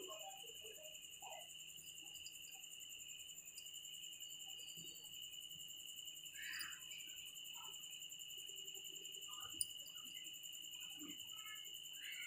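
Faint background room tone with a steady high-pitched tone throughout, a few faint scattered sounds, and a single sharp click about ten seconds in.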